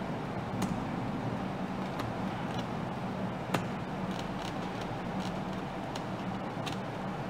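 Steady low background hum and hiss, with a handful of faint, sharp clicks scattered through it, the clearest about three and a half seconds in.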